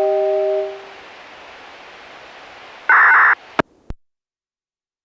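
The last note of a disaster-prevention outdoor loudspeaker's chime melody, in a glockenspiel-like tone, rings out and fades within the first second, leaving a steady hiss from the speaker. About three seconds in, a short loud burst of static sounds as the analog radio broadcast cuts off, followed by two sharp clicks and then silence.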